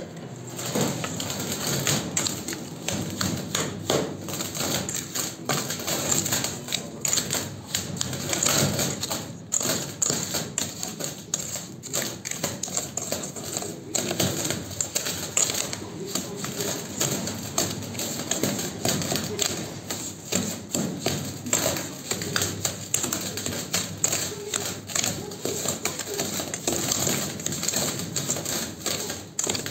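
Hands mixing a crumbly brick mixture in a steel bowl, giving a quick, irregular run of taps, clicks and scrapes against the metal.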